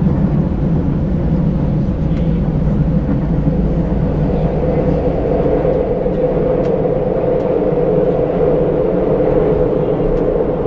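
Seoul Metro Line 2 train running underground, heard from inside a crowded car: a steady loud rumble of wheels and motors, with a higher steady drone coming up about halfway through.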